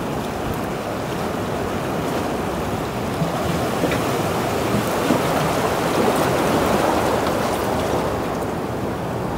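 Sea surf washing against a rocky shore: a steady rushing wash that swells a little midway.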